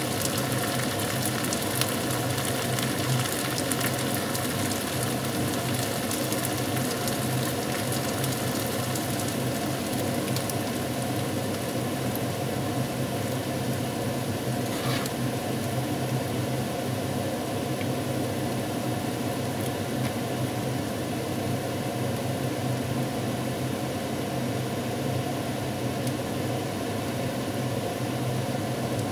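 Chicken pieces sizzling in sauce in a pan on a gas stove, steady throughout, over a constant low hum and a few faint clicks.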